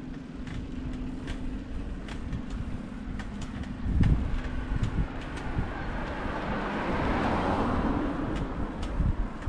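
Wind rumble and buffeting on an action camera's microphone while cycling uphill, with faint scattered clicks. A motor vehicle passes on the road: its tyre and engine noise swells from about four seconds in, is loudest near seven to eight seconds, then fades.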